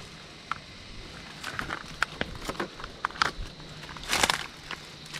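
Footsteps in flip-flops crunching over dry leaf litter, twigs and stones: irregular crackling steps, with a longer rustle about four seconds in.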